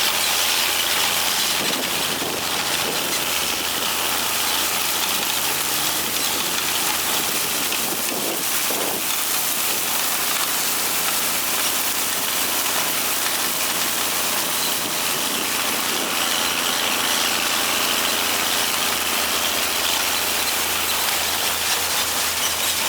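Tractor engine running steadily at working speed, with a constant hiss over it, while pulling a grain drill.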